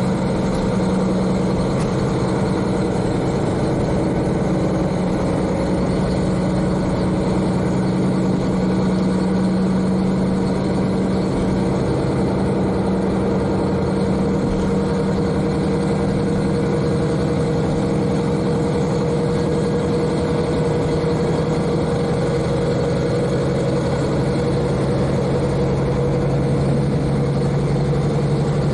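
N-DMF13HZI diesel engine of a KiHa 40 railcar running steadily, heard from inside the cabin directly above it, with the car's running noise underneath. Its pitch settles a little lower about twenty seconds in.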